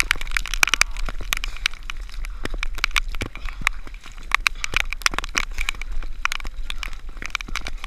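Dense, irregular crackling and tapping of water and mud drops striking a waterproof action-camera housing held low in a mud crawl.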